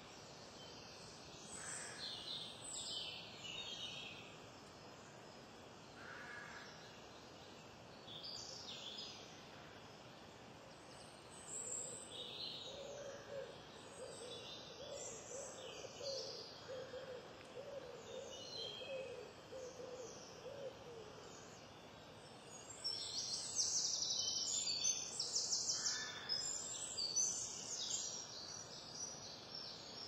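House martins twittering at the nest: short, high chirping calls come and go, with a loud, rapid run of chirps about three quarters of the way through. In the middle, a low call repeats evenly for several seconds underneath.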